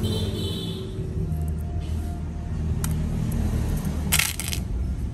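Small D07 carbide lathe inserts clinking against each other and a metal tray in a brief rattle about four seconds in, with a single lighter click before it, over a steady low rumble.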